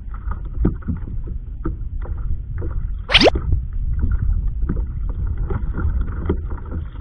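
Water lapping and slapping against a kayak's hull, with a steady low rumble of wind on the microphone. Short knocks come and go throughout, and there is one sharp rising swish about three seconds in.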